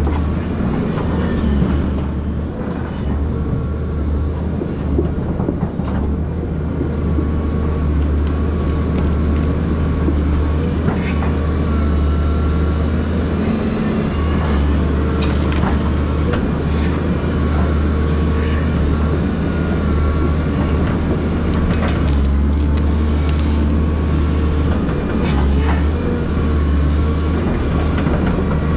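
Volvo EC220DL excavator's diesel engine running steadily under load, with a steady hydraulic whine over it and scattered clatters and scrapes as the stump rake drags through soil and roots.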